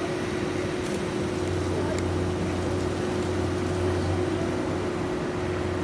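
Steady mechanical hum with one constant tone, joined about a second in by a deeper drone, over continuous outdoor background noise.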